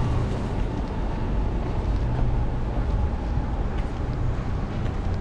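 Steady low rumble of city street traffic, with a faint steady hum above it and no sudden sounds.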